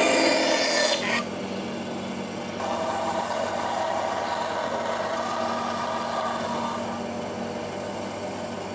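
Bandsaw running with a steady motor hum while its blade cuts a curved line through a thin wooden board. The cutting noise is loudest for about the first second, then drops and carries on at a lower level.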